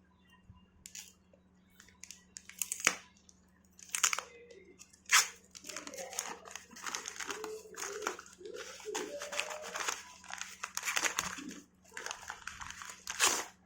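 Packaging being handled and torn open by hand: a few sharp crackles, then steady crinkling and rustling in the second half.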